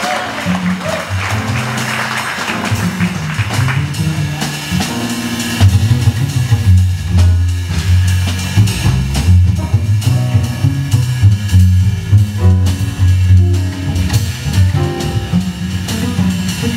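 Upright double bass playing plucked jazz lines, with a drum kit's cymbals and drums behind it. Applause dies away over the first few seconds.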